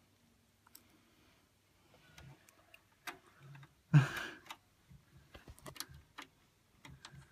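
Small screwdriver turning a screw into the steel expansion-slot bracket of a computer case: scattered light metallic clicks and scrapes, with one louder, noisy burst about four seconds in.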